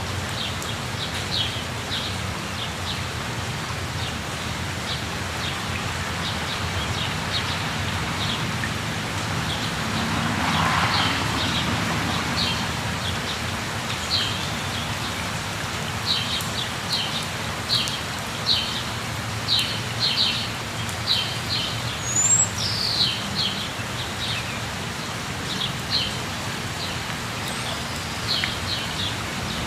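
Steady rush of a waterfall with birds calling over it: many short, high chirps repeated in quick series, busier in the second half. About two-thirds of the way through comes one downward-sliding whistled call.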